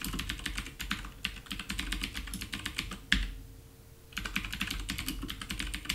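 Typing on a computer keyboard: rapid key clicks for about three seconds, a pause of about a second, then another run of typing.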